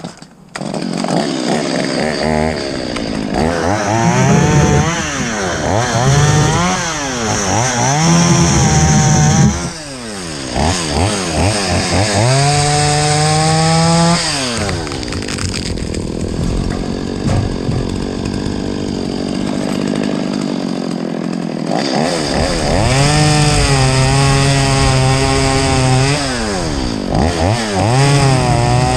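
Chainsaw cutting up Chinese elm limbs. It starts suddenly about half a second in, and the engine pitch rises and falls again and again as the throttle is worked and the chain loads in the wood. There is a steadier stretch in the middle.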